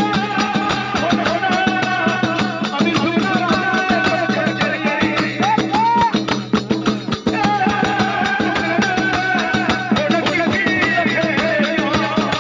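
Gujarati devotional folk singing (jagar): a voice carrying a winding melody over a steady held drone and fast, busy hand percussion.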